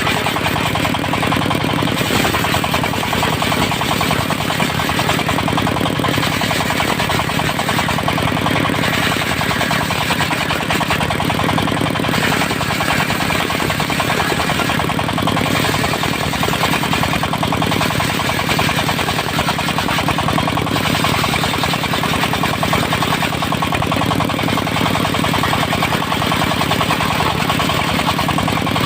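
Diesel engine of a circular sawmill running steadily, with a rapid, even knocking chug.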